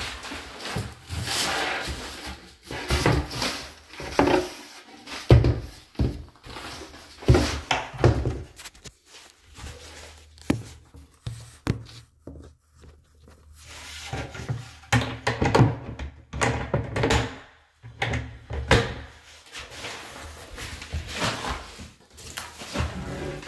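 Irregular knocks, thuds and clatter from working on a particleboard bathroom vanity cabinet, its doors and fittings, with a quieter spell in the middle.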